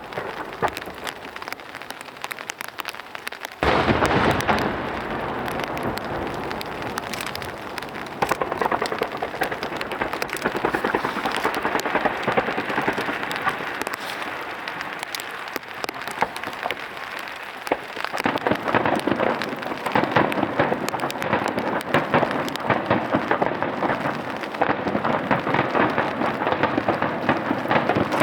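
Starmine fireworks barrage: a dense, continuous crackle of bursting shells and stars that jumps sharply louder about four seconds in and swells again in the second half.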